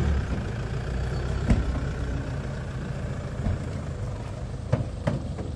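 Pickup truck engine running steadily as the truck pulls away. A few sharp knocks cut through it, one about a second and a half in and two close together near the end.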